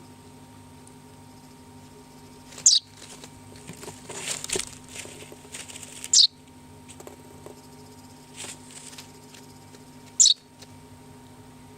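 Baby swallow giving three short, sharp high chirps a few seconds apart, with soft rustling flutters of its wings between them as it beats its not yet fully feathered wings.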